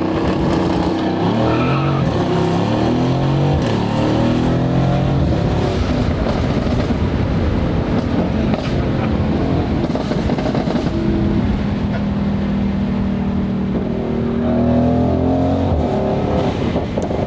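Tuned Mercedes-AMG GLC63 S twin-turbo V8 accelerating hard through the gears. Its pitch climbs and drops back with each upshift, holds steady for a few seconds, then climbs again near the end.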